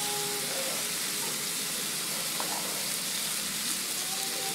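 Hanwoo beef steaks sizzling on a tabletop barbecue grill grate, a steady even hiss.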